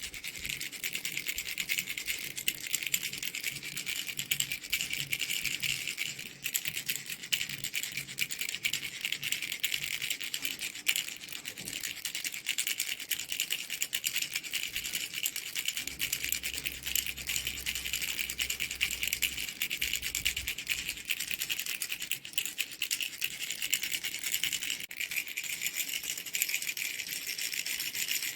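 Baby's mango fruit rattle shaken without a break, a fast, dense, bright rattling.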